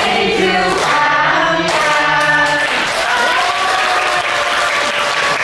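A group of people singing together with clapping underneath, the voices holding long notes in the second half.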